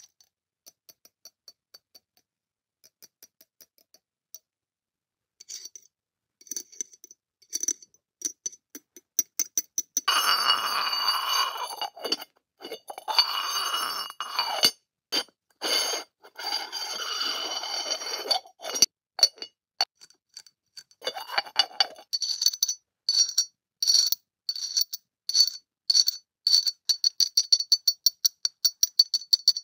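Tapping and scraping on a white ceramic lidded dish: faint, sparse fingernail taps at first, then the ceramic lid scraping against the rim of the bowl for about eight seconds from about ten seconds in. From about 22 seconds in comes a quick run of bright, ringing clinks as small metal scissors tap the ceramic.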